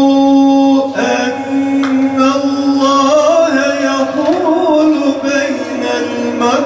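A man's voice reciting the Quran in a melodic chant. A long held note ends about a second in, and winding, ornamented runs rise and fall in pitch after it.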